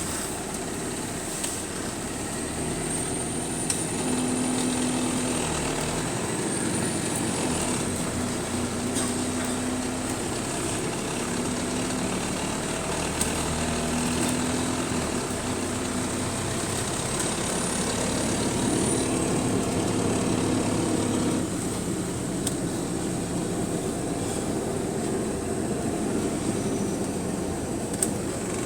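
Diesel bus heard from on board, its engine and drivetrain running steadily. A hum carries pitched tones that come and go and shift a little, with a thin high whine above them.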